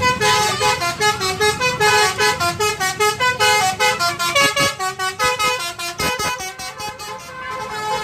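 Tour bus's multi-tone telolet horn playing a 'basuri'-style melody, a quick run of short horn notes stepping up and down in pitch like a tune on a pianica.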